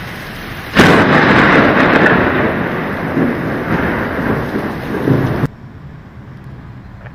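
A thunderclap breaks sharply about a second in and rumbles on for several seconds over steady rain, then cuts off suddenly.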